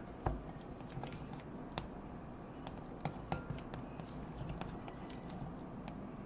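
A fork stirring glue and slime activator in a bowl, clicking and tapping irregularly against the bowl's sides.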